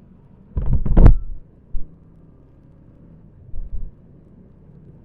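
Motorcycle ride noise on an action-camera microphone: a faint steady low rumble broken by loud low thumps and buffeting about a second in, with shorter ones near two seconds and three and a half seconds.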